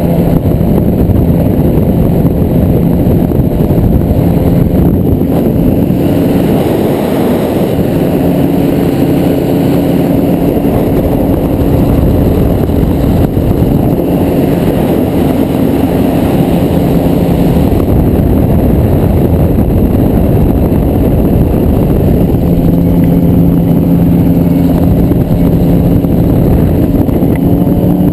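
Autogyro in flight: its engine and propeller running steadily under heavy wind noise on the microphone, with the engine note shifting slightly a few times.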